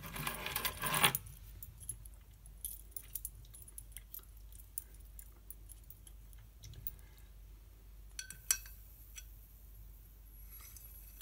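Metal keys jangling, loudest in the first second, then light clicks of the keys against the plasma lamp's glass tube. In the last few seconds a faint high sizzle joins in as a key touches the glass and the lamp's discharge arcs to it.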